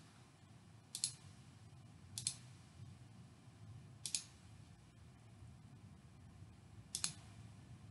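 Computer mouse clicking four times at irregular intervals, each a short sharp click.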